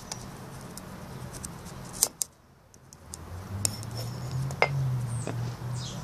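Light clicks and knocks of a phone camera being handled and moved, over a low steady hum that grows louder in the second half.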